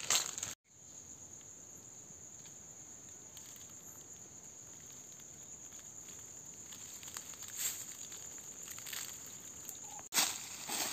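Insects in the forest keep up a steady high buzz. Crunchy rustling of dry leaf litter underfoot comes near the start and again near the end.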